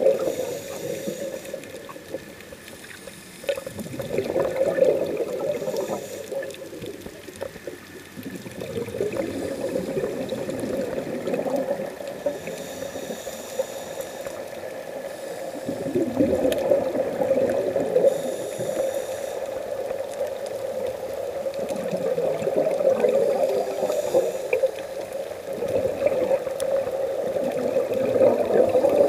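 Scuba breathing heard underwater through the camera: the diver's regulator hissing on each inhale and exhaled air bubbling and gurgling, in a cycle about every five to six seconds.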